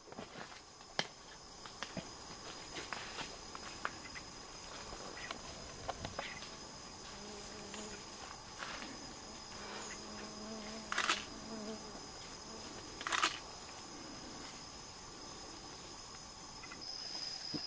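Rainforest insects buzzing steadily at a high pitch, with scattered small clicks and two louder sharp snaps in the second half.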